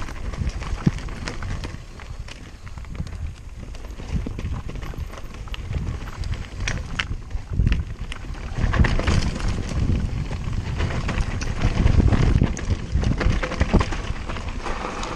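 Wind buffeting the microphone along with the rattle and knocks of a downhill mountain bike running over rough trail. It gets louder and busier about halfway through.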